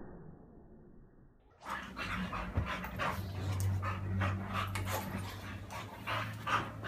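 A boxer and a Portuguese water dog play-wrestling: quick, heavy panting breaths over a low steady drone. The sound starts suddenly about a second and a half in, after a faint start.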